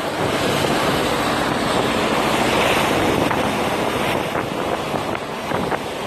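Wind buffeting the microphone over a steady rush of sea, loudest in the first half, with a few faint clicks.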